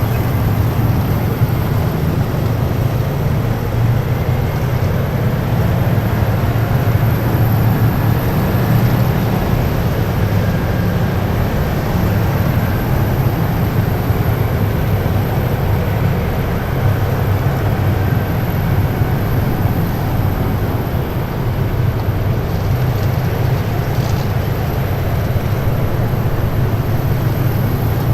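A column of heavy military vehicles driving past, with a loud, steady low engine rumble and road noise that keeps on without a break.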